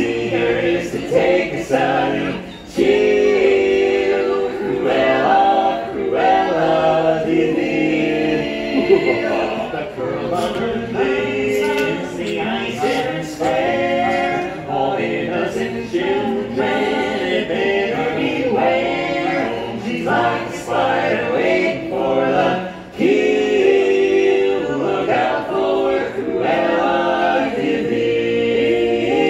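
Barbershop quartet singing a cappella: four men's voices in close harmony, held chords that move together, with no instruments.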